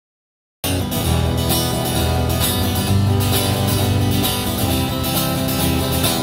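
Instrumental song intro with strummed acoustic guitar, starting abruptly about half a second in.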